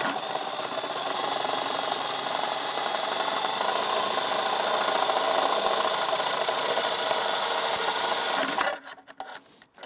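Cordless drill turning a step drill bit through a sheet-metal box to cut a 3/8-inch hole. It runs steadily under load for about eight and a half seconds, then stops suddenly, leaving a few faint clicks.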